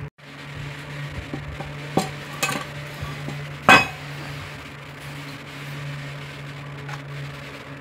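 Metal clinks and knocks of an angle grinder's disc being changed, one flap disc taken off and another fitted, with the loudest knock a little under four seconds in. A steady low hum runs underneath.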